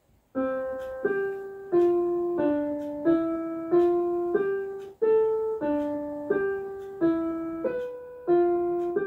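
Intro music: a slow, simple tune on a piano-like keyboard, played one note at a time, each note struck and fading, about three notes every two seconds, with a brief gap about five seconds in.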